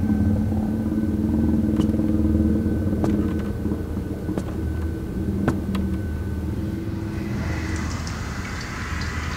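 A low, steady rumble with a few sharp clicks; near the end a tap is turned on and water runs into a washbasin with a steady hiss.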